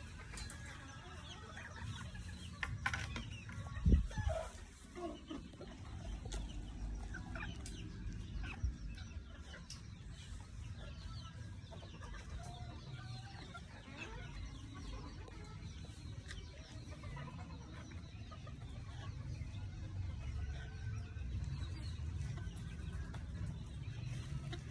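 A flock of chickens clucking, with many short, overlapping calls. There is one brief loud thump about four seconds in.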